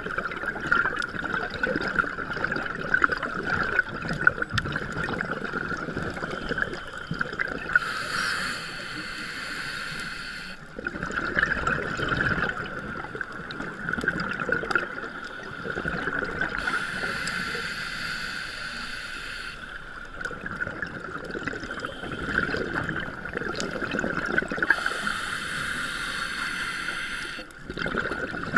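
Scuba regulator breathing heard underwater: a hissing inhalation roughly every eight seconds, each followed by gurgling, crackling exhaled bubbles. A steady high-pitched hum runs underneath.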